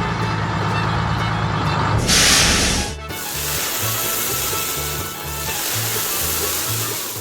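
Background music over a steady low mechanical hum, with a loud hissing whoosh about two seconds in that lasts about a second.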